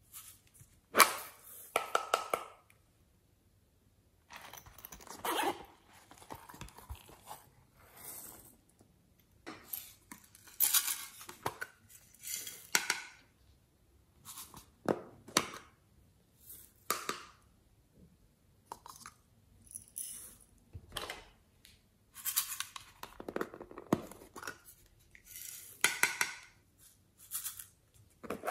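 Small plastic novelty containers handled and pulled open by hand: intermittent clicks, crackles and plastic scrapes in short bursts with quiet gaps between.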